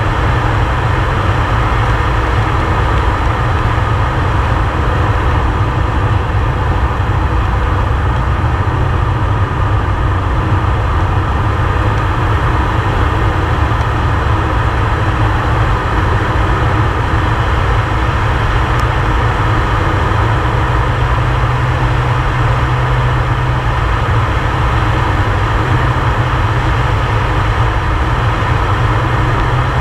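Air Tractor 502XP's Pratt & Whitney PT6A turboprop engine and propeller running steadily at flight power, heard from inside the cockpit as a loud, even drone.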